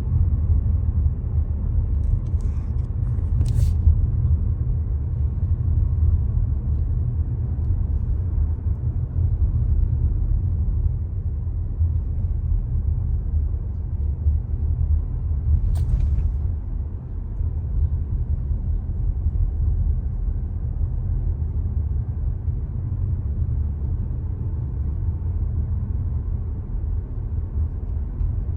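A car being driven: a steady low rumble of road and engine noise, with two short clicks, one a few seconds in and one about halfway through.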